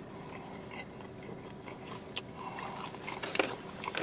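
Someone biting into and chewing a hoagie on a crusty seeded roll: faint mouth sounds with a few short crackles and clicks, the sharpest a little after three seconds in.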